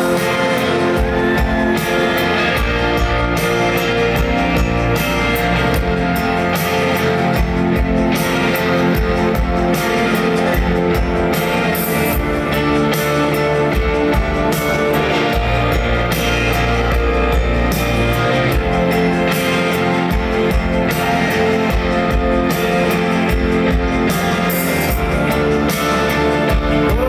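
Live rock band playing an instrumental passage with no vocals: guitar over a steady drum beat, at full concert volume.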